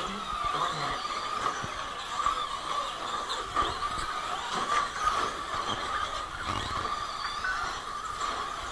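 Several electric RC short-course trucks racing, their motors and gears making a steady, wavering whine, with a few short knocks from the trucks.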